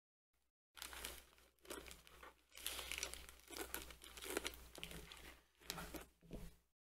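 Plastic bag crinkling and rustling as a stack of comic books is handled and pulled out of it, starting about a second in.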